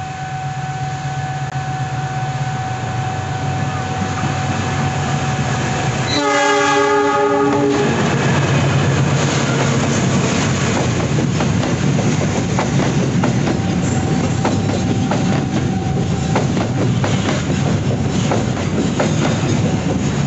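Container freight train hauled by a diesel-electric locomotive approaching, its engine rumble growing louder over a steady high tone. About six seconds in the locomotive gives one horn blast of about a second and a half. The locomotive and container wagons then roll past close by, with wheels clattering over the rail joints.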